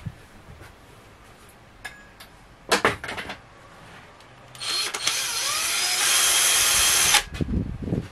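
A cordless drill-driver runs for about two and a half seconds from around the middle, driving a screw into pine ceiling boards. A few sharp knocks come about three seconds in.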